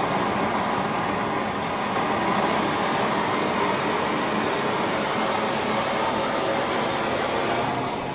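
Gas torch flame running steadily, keeping silver molten in a melting dish during a pour; its high hiss drops away suddenly near the end.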